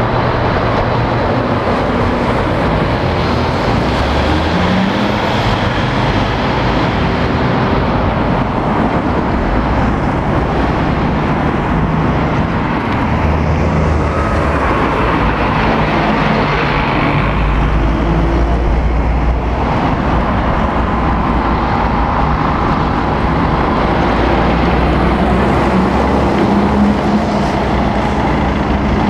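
Road traffic passing steadily through a roundabout: a loaded articulated container lorry's diesel engine at the start, then vans and cars, with engine drone and tyre noise. A deeper engine rumble swells a little past halfway.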